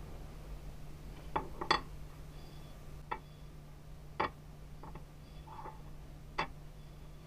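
Light, irregular clicks and taps of the small metal and wooden parts of a miniature hammer knocking together as they are handled and fitted, about seven in all. A steady low hum runs underneath.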